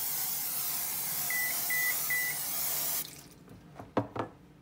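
Aerosol nonstick cooking spray hissing steadily onto a glass baking dish, cutting off about three seconds in. Three short electronic beeps sound during the spray, and two quick knocks follow near the end.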